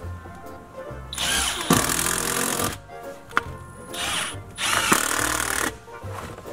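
A handheld power tool run in three short bursts of about a second each, with a sharp click in each burst, over background music.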